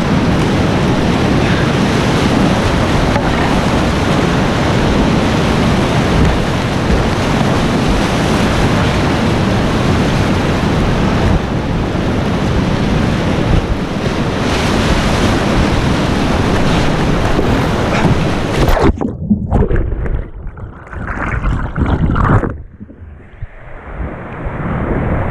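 Class 4 whitewater rapid rushing and splashing loudly around a kayak, heard up close from the boat. About nineteen seconds in, the sound turns muffled and broken and almost drops out for a couple of seconds as water washes over the camera, then comes back near the end.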